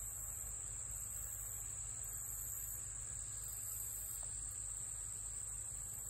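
Insect chorus: a steady high-pitched trill, with a second, still higher insect call that starts and stops in bouts of about a second.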